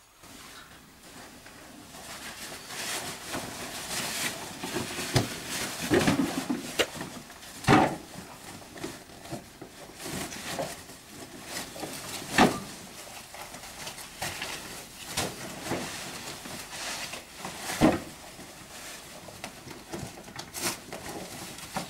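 Rustling and handling noise of a caving tackle bag and a ground mat being worked, with scattered sharp knocks, the loudest about eight, twelve and eighteen seconds in.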